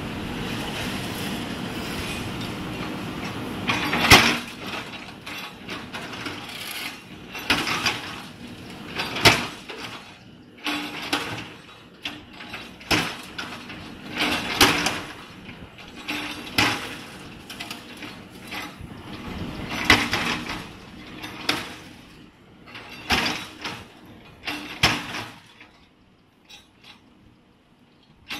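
JCB 3DX backhoe loader's diesel engine running while its rear bucket breaks and drags collapsed concrete slabs and rebar, giving repeated sharp cracks and scrapes every second or two. Quieter near the end.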